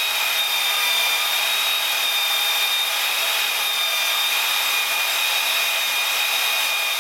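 Electric power tool on a bench-mounted rig running steadily with a constant high whine while tire rubber is worked through it.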